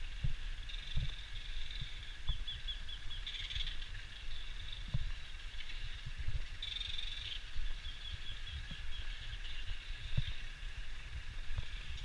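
A dense chorus of many birds calling at once, with quick chattering runs of short notes, over irregular low thumps and rumble.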